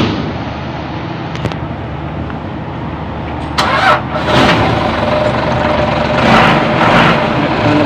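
Toyota 4-ton diesel forklift being started. The starter cranks and the engine catches with a sudden loud burst about three and a half seconds in, then runs.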